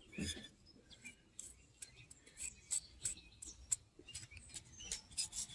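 Faint, irregular light clicks and scratches, a few a second, from handling a small electronic module and its corroded circuit board.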